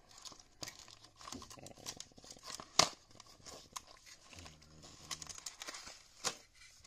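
Small cardboard box and clear plastic blister tray rustling and crinkling as the box is opened and the tray slid out, with scattered small clicks and one sharp snap about three seconds in, another near the end.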